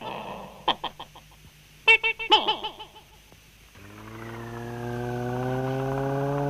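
Short clicks and clucking calls from the Iron Chicken. Then, about four seconds in, her homemade machine switches on with a low electronic hum that slowly rises in pitch and swells in loudness.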